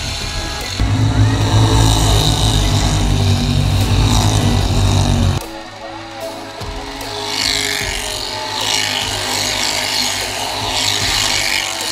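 Dirt modified race cars running in a pack around a dirt oval, their engines heard from trackside. About five seconds in the sound drops sharply and the engines become quieter and more distant.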